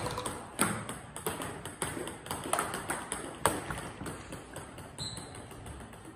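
Celluloid-type table tennis ball clicks: the ball bouncing on the table and being struck with a paddle during serves, a run of light, sharp, irregular clicks.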